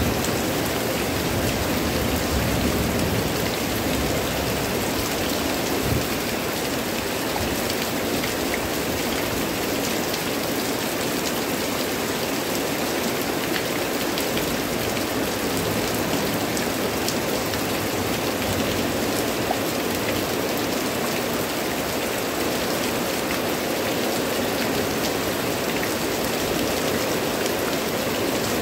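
Heavy rain falling steadily on leafy plants, trees and ground, an even hiss that holds at one level throughout.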